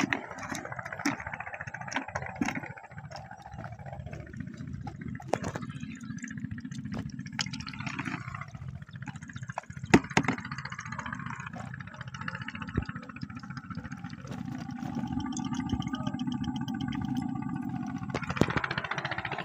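An engine running in the background, louder and more pitched from about 15 s in, with scattered sharp knocks and clicks over it.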